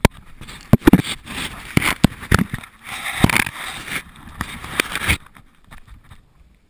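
Close handling noise: clothing and the camera rubbing and scraping against rock, with several sharp knocks, while crawling through a tight cave passage. It stops about five seconds in.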